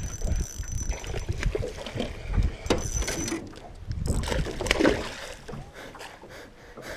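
Lake water lapping and slapping against the hull of a small aluminum jon boat, with wind buffeting the microphone in irregular low surges and a few sharp clicks.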